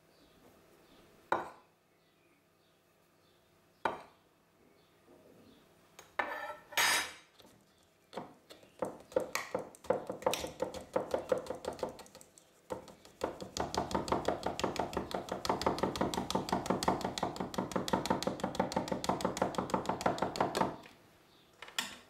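Stainless steel mesh sieve shaken over a plastic mixing bowl to sift flour: a fast, steady rattle and tapping that stops shortly before the end. A few separate knocks come first.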